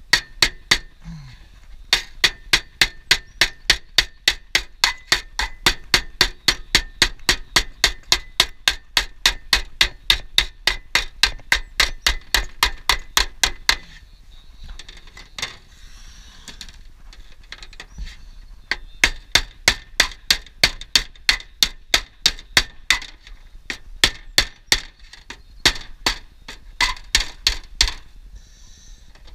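Quick, even hammer blows, about three a second, each with a metallic ring, worked against aluminium roofing flashing to shape a standing-seam fold. The blows stop for a few seconds about halfway through, then go on in shorter runs.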